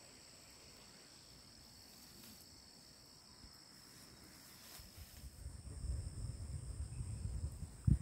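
Insects chirring steadily: two unbroken high tones over faint outdoor hiss. From about five seconds in, a low rumble on the microphone rises, with a single knock just before the end.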